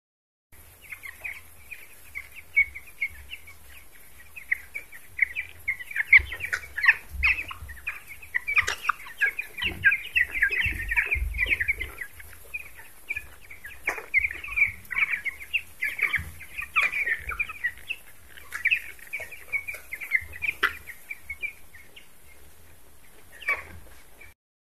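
A flock of young broiler chicks peeping continuously, many short high calls overlapping, busiest in the middle, with a few low thuds.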